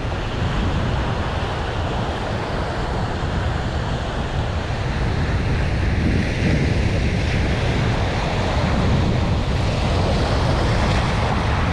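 Ocean surf washing up on a beach in a steady rush, with wind buffeting the microphone.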